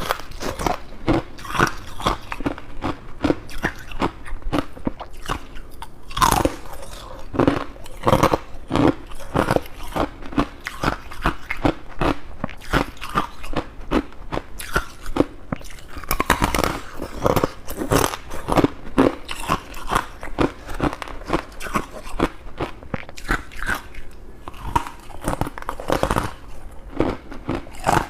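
A person biting and chewing crunchy humidifier-grown freezer frost, a dense run of crisp crunches several a second.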